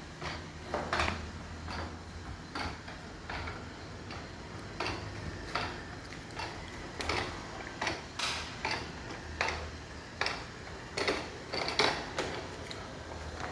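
Xiaomi 2C robot vacuum driving back to its charging base after finishing its cleaning run: a steady low motor hum with irregular light clicks and knocks, about one and a half a second.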